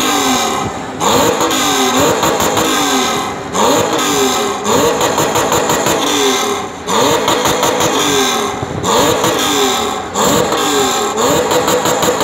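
Honda Gold Wing's flat-six engine revved in short repeated blips, the pitch climbing and falling back about once a second.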